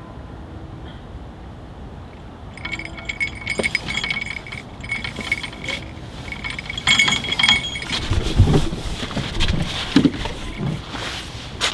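Metallic jingling and ticking from a catfish rod as a fish takes the bait, starting about two and a half seconds in. From about eight seconds, heavier knocks and rustling join in and grow louder as the angler moves to the rod.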